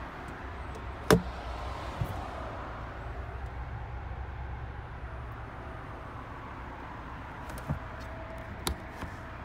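Boot floor cover of an Audi Q3 being handled, with one sharp knock about a second in, as the panel is lifted over the spare-wheel well, and a few lighter knocks near the end. A steady low hum lies underneath.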